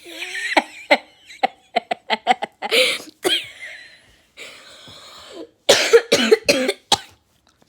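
A person wheeze-laughing: breathy, hissing gasps broken into short bursts, a quick run of them about two seconds in and a squeaky high wheeze a little after three seconds. A cluster of loud bursts comes near the end.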